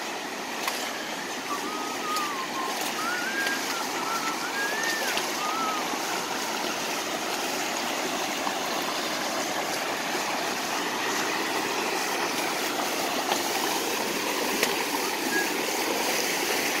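A muddy creek running high and fast after rain, rushing steadily over the rock bank and growing slightly louder. In the first few seconds a bird gives a few faint whistled notes.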